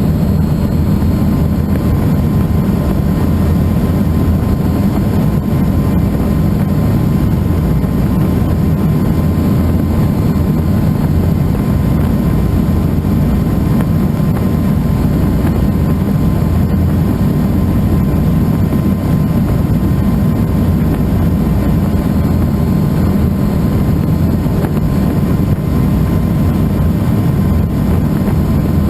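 Helicycle kit helicopter in flight, its turbine engine and rotor running steadily: a loud, unchanging low drone with faint steady tones above it.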